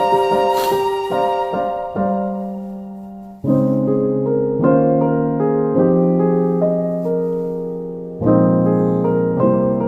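Background music: electric piano playing soft chords that change every second or so, with a pause about three seconds in.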